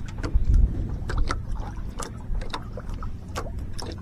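Irregular knocks and taps of handling on a small wooden fishing boat, with a louder low thump about half a second in, over a steady low rumble of wind and water.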